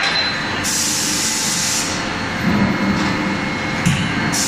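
Steady machine noise from an Anyang C92K 40KJ CNC hydraulic die forging hammer at work. A hiss lasts about a second shortly after the start, a light knock comes near the end, and a second, shorter hiss follows it.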